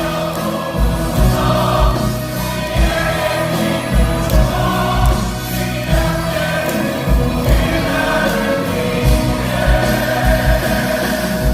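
A musical-theatre cast singing a rousing number in chorus, backed by an orchestra, with a steady low drum beat under the voices.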